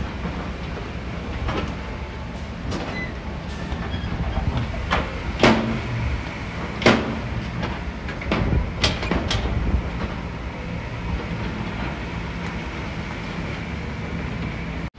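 Diesel engine of heavy construction machinery running steadily, with several sharp clanks and knocks between about five and ten seconds in.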